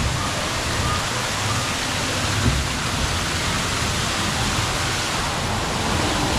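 Steady hiss of rushing, falling water, like rain or a waterfall, with a faint low rumble underneath.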